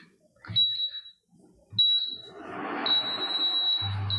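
Bajaj Platini induction cooktop beeping as its touch buttons are pressed. There are short high beeps about half a second and two seconds in, a longer beep about three seconds in, and another short one near the end. From about two seconds a steady whir comes in, like the cooktop's cooling fan, and just before the end a low hum sets in as it starts heating.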